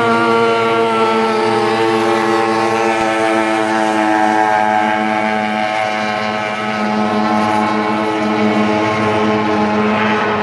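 Racing outboard engines on small race boats running at speed: a steady, high-pitched engine tone whose pitch drifts only slightly.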